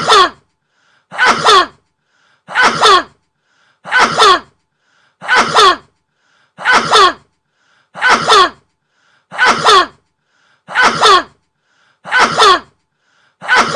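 A person sneezing again and again at an even pace, about one sneeze every 1.4 seconds, ten in all. Each sneeze has the same shape, a faint short intake just before it and a loud burst that falls in pitch.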